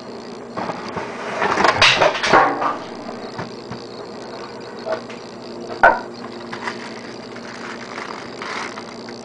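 A smartphone's retail box and packaging being opened and handled: rustling and scraping for the first few seconds, a sharp click about six seconds in, and lighter handling near the end, over a steady low hum.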